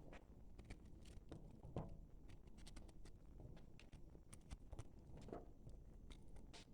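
Knife cutting through microwaved soap: faint crisp crackling and ticking, with a couple of slightly louder crunches.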